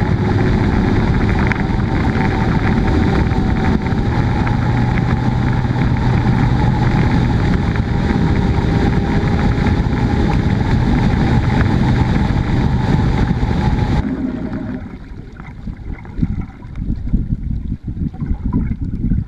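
Bass boat's outboard motor running steadily at speed, with wind and spray noise over it; its pitch steps up slightly about four seconds in. About fourteen seconds in the sound drops suddenly to quieter gusts of wind on the microphone and water lapping at the hull of the stopped boat.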